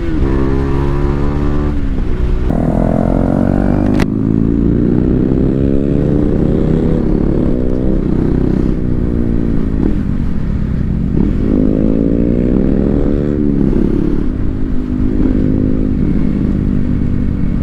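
Motorcycle engine pulling through the gears on the move, its pitch climbing steadily and then dropping at each shift, about three times.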